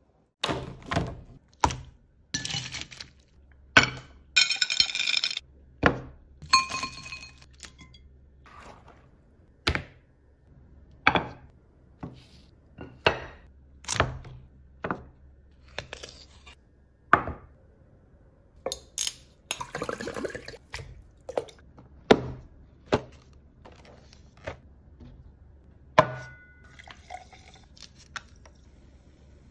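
Kitchen and tableware sounds: sharp knocks, clicks and glassy clinks about once a second, with a few short crackling stretches between them and a short fizzing hiss near the end.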